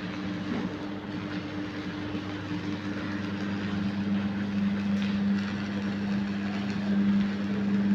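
Electric welding arc on 2 mm 304 stainless steel sheet: a steady buzzing hum with a crackling hiss that stops at the very end.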